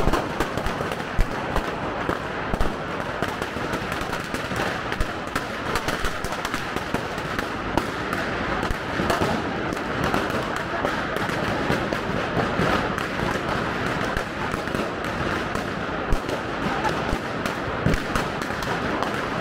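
Firecrackers going off in rapid succession, a dense, unbroken crackle of many sharp small bangs overlapping one another.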